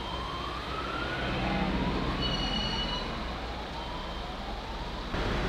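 A faint emergency-vehicle siren, its tone rising again and again about once a second, over the steady low rumble of a vehicle.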